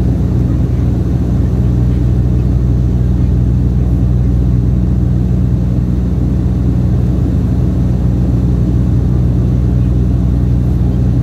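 Turboprop airliner's engine and propeller droning steadily in flight, heard from inside the passenger cabin: an even, loud low hum with a few steady deep tones.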